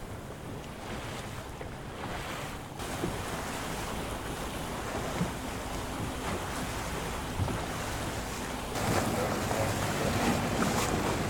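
Wind buffeting the microphone over the wash of waves, with a steady low engine hum underneath; it all gets louder about nine seconds in.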